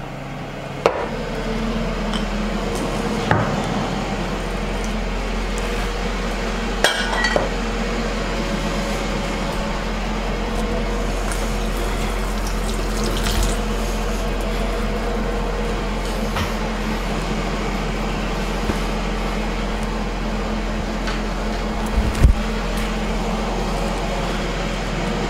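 Ninja Foodi Max multicooker running with its crisping lid shut: a steady fan whir with ribs sizzling inside. A click about a second in, after which the whir and sizzle set in, and a few light clicks and knocks later.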